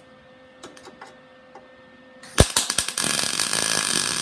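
MIG welder tacking a sheet-steel patch panel: the arc strikes about two seconds in with a few sharp pops, then settles into a steady crackling sizzle for about a second before cutting off at the end. A few light clicks come before it.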